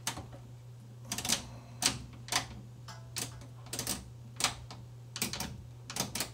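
Detented rotary switches on a bench voltage source clicking step by step as the output is dialled down from 1.999 V to 1 V for a calibration check. There are about a dozen separate clicks, some in quick pairs, roughly every half second.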